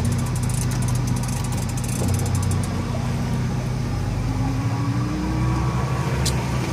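Fishing reel clicking rapidly for the first couple of seconds as a hooked fish is fought on a heavy rod, over a steady low mechanical hum.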